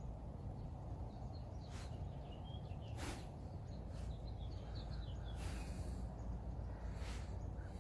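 Small birds chirping in short, scattered calls over a steady low outdoor background rumble, with a few brief rustles close to the microphone.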